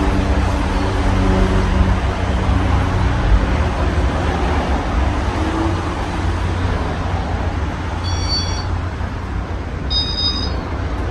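Casablanca Halogen Star ceiling fan with five blades running, a steady rush of moving air with a low rumble. Short high chirps sound twice near the end.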